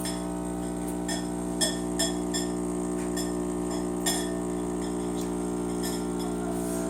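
Steady machine hum with about six light clinks of dishware, sharp with a short ring, spread over the first six seconds.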